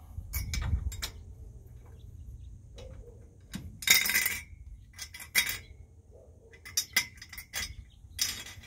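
Metal clinking as a tapered lug nut is worked onto the stud through the hub of a chrome wire wheel by hand. The clinks are irregular and sharp, some ringing briefly, and the loudest and longest comes about four seconds in.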